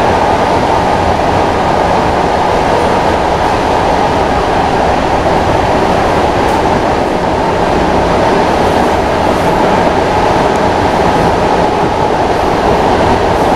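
Steady running noise of an ER2T electric multiple unit at speed, heard from inside the passenger coach.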